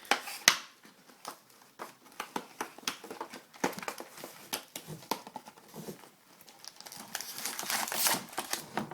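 Card packs and their wrappers crinkling and rustling as they are handled, with many small sharp clicks and taps, and a denser stretch of crinkling about seven seconds in.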